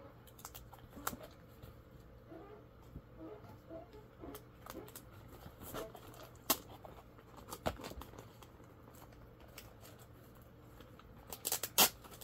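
Comic books being handled and sorted: scattered soft paper and plastic rustles and light taps, with a quick run of louder clacks near the end.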